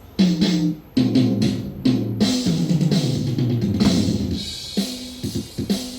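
Background music with a steady beat: drum kit hits over bass and guitar notes.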